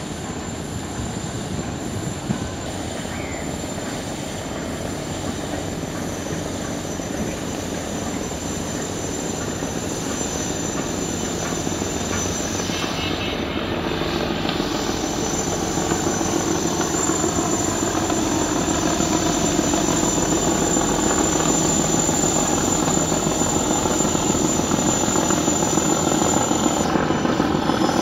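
Engines of a large multi-deck river passenger launch droning steadily as it passes, growing louder as it comes close.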